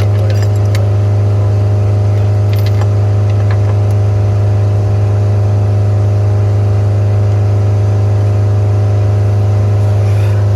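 Skid steer engine running steadily at a constant, high speed, with a few light clicks over it.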